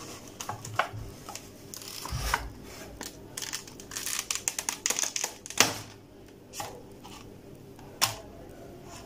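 Clear plastic blister pack being pried open by hand: a run of crackles and crinkles of stiff plastic, with a loud snap a little past halfway and another sharp snap near the end.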